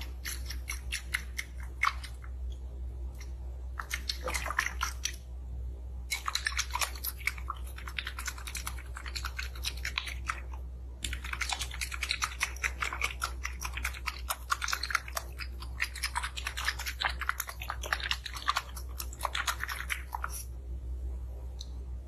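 Fingers squeezing and rubbing a soft, translucent, gourd-shaped bulb close to the microphone, making a dense crackle. It comes in several bursts with short pauses, the longest burst filling most of the second half.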